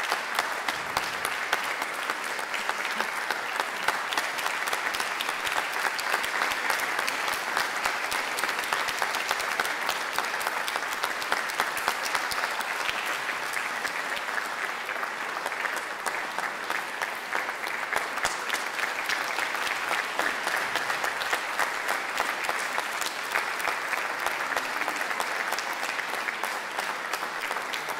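Audience applauding: steady, dense clapping that keeps on without a break.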